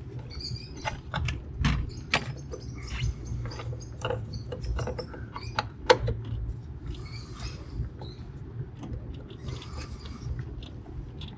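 Irregular light clicks and taps of a small cover and screw being handled and fitted onto a GM wiper motor's pulse controller, over a steady low hum.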